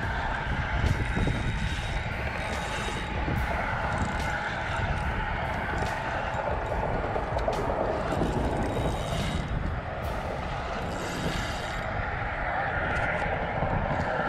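Wind buffeting the microphone: a steady, fluttering rush, with a few light clicks scattered through it.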